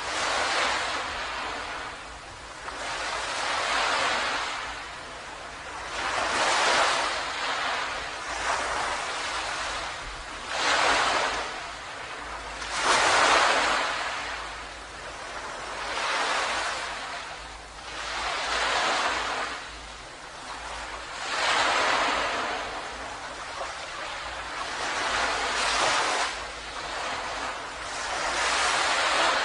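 Small ocean waves breaking and washing up the shore in a steady rhythm, each swell of surf hissing up and falling away every two to three seconds.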